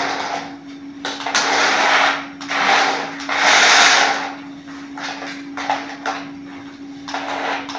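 Toy RC car's small electric motor and plastic gears whirring in a series of short bursts, each a second or less, as it is driven on a concrete floor. The loudest burst comes about three and a half seconds in. A steady low tone hums underneath.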